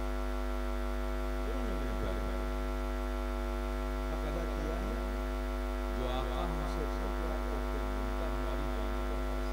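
Steady electrical mains hum, a low buzz with a ladder of overtones above it, with faint voices rising and falling beneath it now and then.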